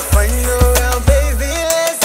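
Background music with a deep beat about twice a second under a held melody line; the deep bass stops shortly before the end.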